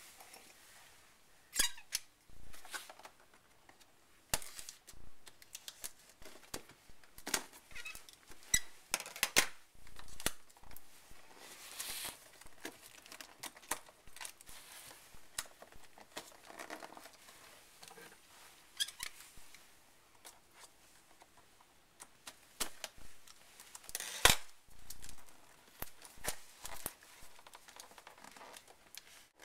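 Cardboard product box being opened by hand: irregular scrapes, rustles and sharp clicks as fingers work at the flaps and seal, the loudest click near the end.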